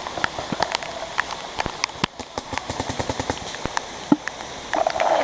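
Paintball markers firing: scattered sharp pops and a quick string of shots about halfway through, over the steady hiss of rain.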